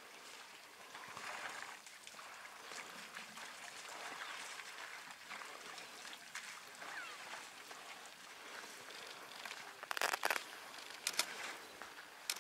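Quiet outdoor bush ambience at a waterhole: a steady soft hiss, then a quick cluster of sharp clicks or knocks about ten seconds in and another single click about a second later.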